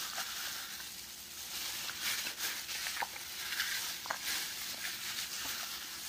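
Irregular wet squelching and crinkling as hands in thin plastic gloves knead marinade into raw pork chops in a glass bowl, with a few small clicks.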